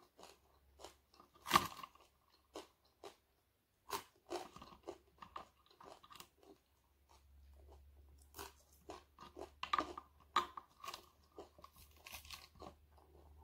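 Close, crunchy chewing of fried dried fish: a run of irregular crisp crunches, with one louder bite about a second and a half in.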